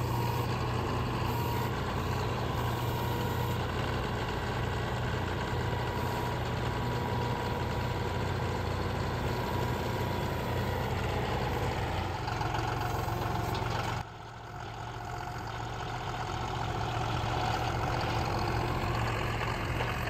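Diesel engine of a John Deere utility tractor running steadily while its front loader lifts a log. The sound drops suddenly about two-thirds of the way through, then builds back up.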